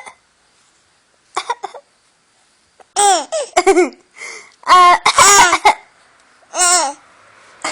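A young child's coughing laughs: short, high-pitched bursts of laughter with a cough-like catch. They come in several runs with pauses between, the loudest about five seconds in.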